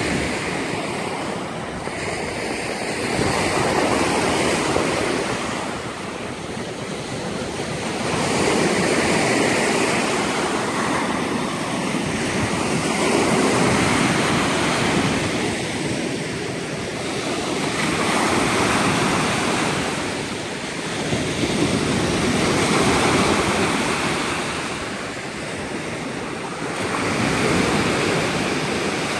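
Rough Lake Superior surf breaking on a gravel-and-rock shore. The wash swells and eases every four to five seconds as each wave comes in.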